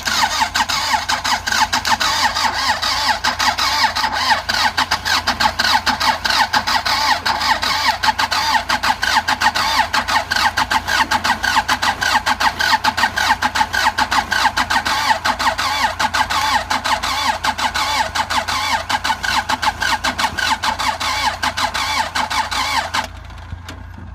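Andoria 4CT90 four-cylinder diesel engine being cranked by its starter motor for over twenty seconds, turning over in a fast even rhythm without firing, the sign of its no-start fault. The cranking stops suddenly near the end.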